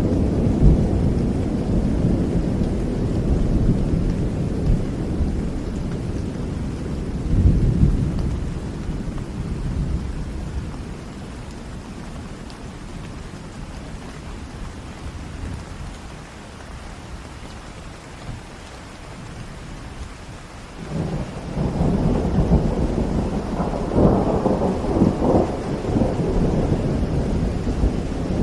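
Steady rain with rolling thunder: a deep rumble that dies away slowly through the first half, then a second peal that breaks in suddenly about two-thirds through and swells.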